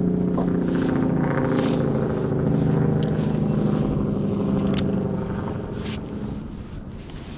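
A motor vehicle's engine humming steadily, then fading away about five seconds in, with a few faint clicks over it.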